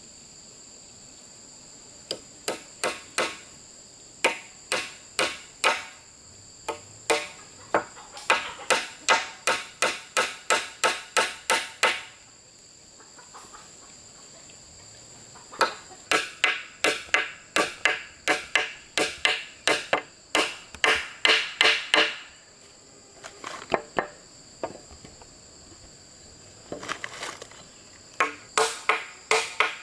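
Tool strikes on bamboo, coming in quick runs of about three blows a second with short pauses between them. A steady, high-pitched insect drone continues behind.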